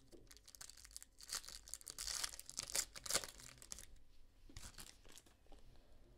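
A Panini Prizm basketball card pack's wrapper being torn open and crinkled, with the cards shuffled through by hand: quiet, irregular tearing and rustling, busiest in the first half.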